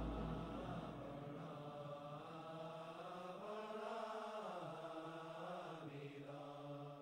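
Background music of a low voice chanting a mantra in long held notes that slowly rise and fall. A deep drone dies away in the first second, and the chant fades out at the end.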